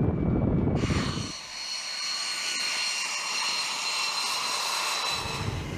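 Fighter jet engines on the runway. A low rumble in the first second or so gives way to a steady, high-pitched turbine whine with several held tones.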